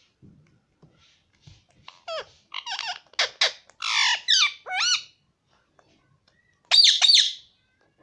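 Indian ringneck parakeet chattering in a quick string of high, gliding calls for about three seconds, then two loud, sharp calls near the end.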